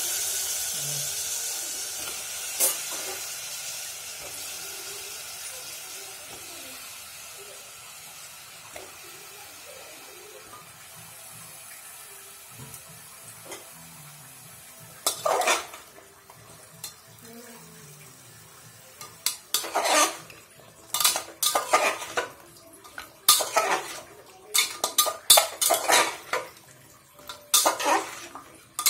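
Cut papaya pieces sizzling in hot oil and spices in a metal pot, the hiss loudest at first and fading away over several seconds. Later a metal spoon stirs the pieces, clattering and scraping against the pot many times.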